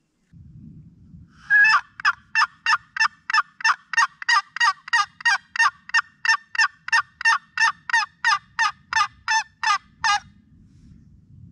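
A hand-held turkey call, worked by a hunter, sounds a long, even run of about 25 short notes, roughly three a second. It starts after a brief rustle of handling.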